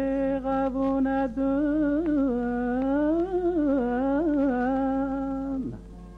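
A singing voice holding one long, ornamented sung phrase in a song: it slides up into the note, wavers up and down in pitch, then slides down and breaks off near the end, over a quiet instrumental accompaniment.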